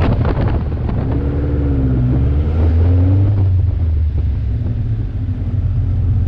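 Caterham Super Seven JPE's 2-litre Vauxhall VX four-cylinder engine running at low revs as the open car rolls slowly, a low steady exhaust note, with wind noise on the microphone.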